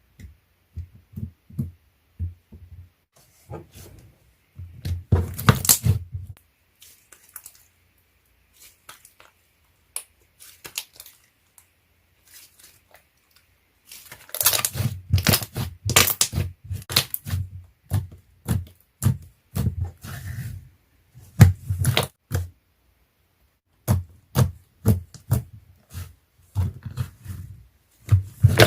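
Slime being squeezed, folded and poked by hand, giving bursts of wet clicks, pops and crackles. The sounds come in short clusters, sparse at first and dense and steady through the second half.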